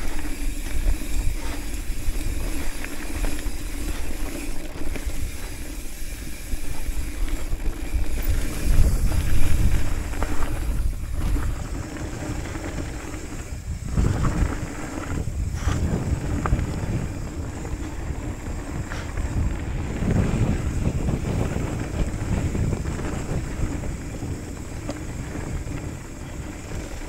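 Hardtail mountain bike descending a dirt and gravel trail: tyres rolling over the loose surface with wind buffeting the microphone, and a few knocks and rattles from the bike over bumps.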